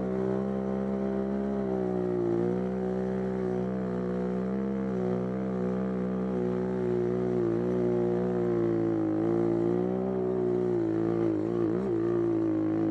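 GIO X35 dirt bike engine running at a fairly steady throttle, its pitch rising and falling gently, with a quick wobble in pitch near the end.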